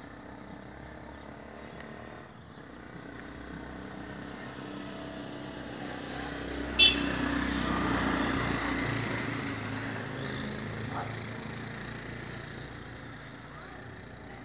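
A motor vehicle passing by, growing louder to a peak about eight seconds in and then fading away. A brief sharp sound stands out about seven seconds in, near the loudest point of the pass.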